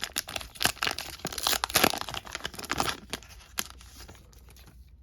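A 2021 Topps Fire baseball card pack being torn open, its wrapper ripping and crinkling in a run of sharp crackles for about three seconds, then settling into quieter handling.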